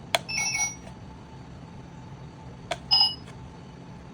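Toy IC-card ticket gate reader responding to a card tapped twice: each tap is a sharp click followed by a short electronic beep chime. The first chime steps through a few tones for about half a second, and the second, about 2.7 s in, is shorter.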